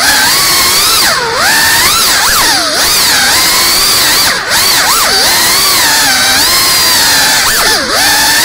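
FPV quadcopter's brushless motors whining, the pitch sliding up and down as the throttle changes, with three short drops where the throttle is cut.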